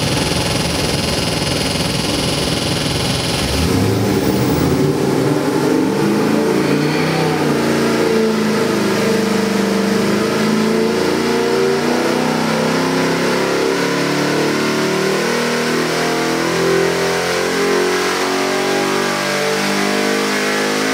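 Ford 7.3L Godzilla gasoline V8 crate engine, running naturally aspirated on an engine dyno. It idles for the first few seconds, then pulls under load in a rising-rpm sweep, revs climbing steadily to about 6,000 rpm near the end.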